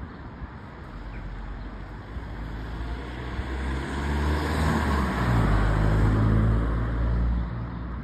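A motor vehicle drives past close by over steady traffic noise. Its engine grows louder from about halfway through, shifts down in pitch a little past the middle, and fades near the end.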